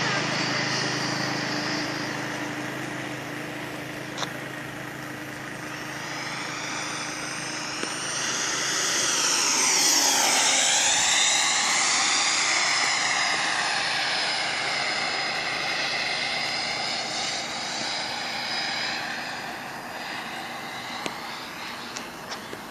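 Electric ducted fan of an RC F-16 jet (a high blade-count fan unit that sounds like a turbine) whining in flight. It grows louder as the jet makes a low pass about ten seconds in, then fades as it flies off.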